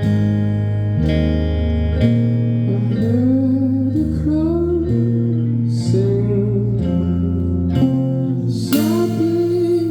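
Live band music: guitar chords over a low bass line that changes note about once a second, with a voice singing a gliding melody from about three seconds in.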